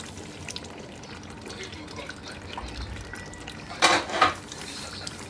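Pot of tomato stew simmering, with faint bubbling and crackling, and two short, louder pops close together about four seconds in.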